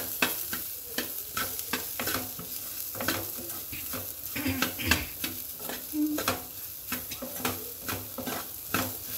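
Chopped cluster beans being stirred with a spatula in a hot pan over a light sizzle, the spatula scraping and knocking against the pan in repeated, irregular strokes as spice powders are mixed into the frying beans.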